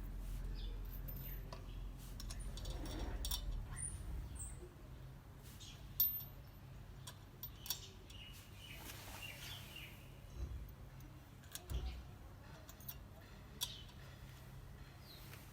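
Small metal clicks and clinks of hand work on a rear drum brake's shoe hold-down spring and washers: one sharp click about six seconds in and a few lighter ones after it, over a faint low rumble.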